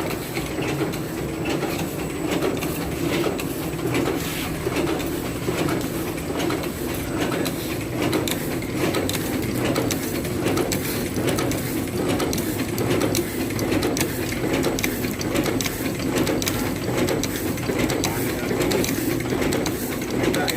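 Repaired cutting machine running steadily on its test run, with a constant hum and a fast, regular clicking or clattering.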